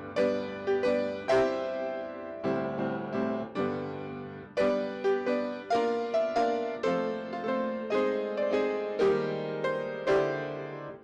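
Piano playing a slow piece, single notes and chords struck and left to die away.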